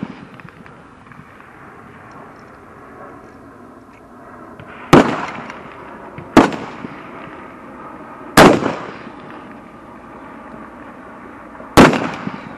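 Four sharp fullbore rifle shots, each followed by a short echo dying away. The first two come less than a second and a half apart, too close for one bolt-action rifle, so more than one rifle on the firing line is firing.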